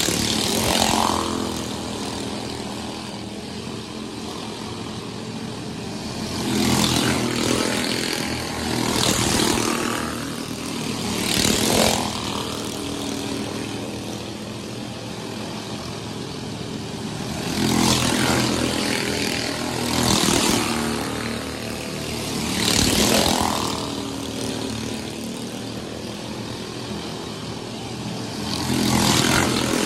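Cyclone-class dirt-track race cars running laps on the oval, their engines surging loud as each car or small group passes close by, then dropping back to a steady drone from the rest of the field. About eight close passes, in pairs a few seconds apart, each with the engine note sweeping in pitch.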